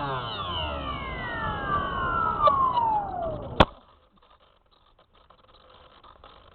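Electric motor and propeller of a Spyhawk RC plane winding down, the whine falling steadily in pitch for about three and a half seconds. Then a sharp click, and the sound drops away to a faint hiss.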